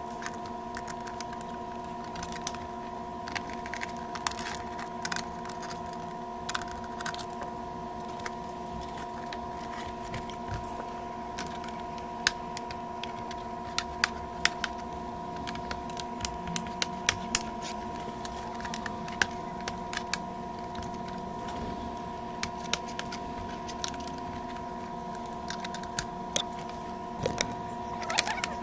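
Scattered sharp clicks and taps of tools and plastic parts being handled while an LCD monitor is taken apart, over a steady hum made of several fixed tones. The clicks come thickest about halfway through.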